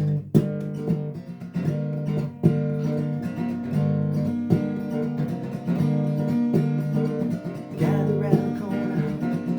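Acoustic guitar strumming a rhythmic, repeating chord riff with sharp, percussive strokes: the song's instrumental intro before the vocals come in.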